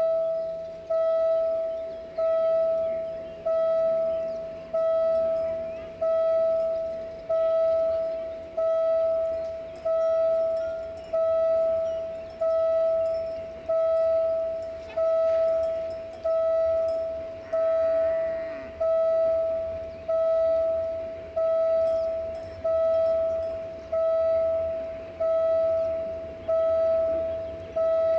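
Railway level crossing warning bell ringing steadily, about one stroke a second, each stroke a single clear tone that dies away before the next. Beneath it, a faint low rumble from a passing freight train grows in the second half.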